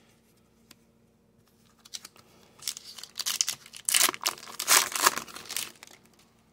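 Foil pack of Upper Deck Series 2 hockey cards being torn open by hand, the wrapper crinkling and tearing. The sound starts about two seconds in and is loudest near the middle.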